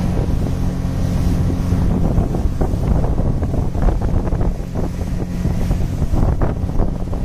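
Speedboat motor running with a steady drone that fades about two seconds in, leaving wind buffeting the microphone and water rushing and splashing.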